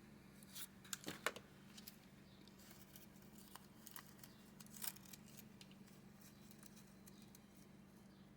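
Faint scratching and a few small sharp clicks as a hand tool works at the old drum skin of a tin toy drum, bunched in the first five seconds, over a steady low hum.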